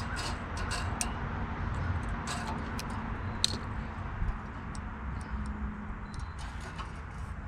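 Scattered small metal clicks and clinks of hand tools and parts as a Honda GX390 engine's carburetor and throttle linkage are refitted, over a steady low rumble. The sharpest click comes about three and a half seconds in.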